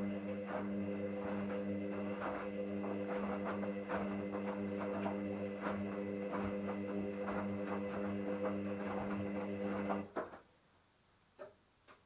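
Hoover Dynamic A59 front-loading washing machine on its 60 °C wash: the drum motor hums steadily while wet laundry tumbles in the drum with many irregular knocks. The motor stops abruptly about ten seconds in, for the pause between drum turns, followed by a couple of faint clicks.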